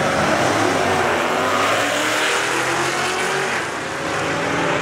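Two drag-racing cars launching off the start line and accelerating hard down the strip, their engines running at full throttle.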